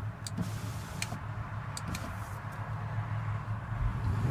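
Audi Q7's 3.0-litre supercharged V6 idling steadily after startup, heard from inside the cabin as a low hum, with a few faint clicks in the first two seconds.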